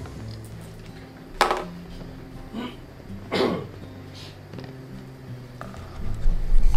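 A quiet room with a faint low hum, broken by a few short knocks or clicks, the loudest about three and a half seconds in. Near the end a loud low rumble rises.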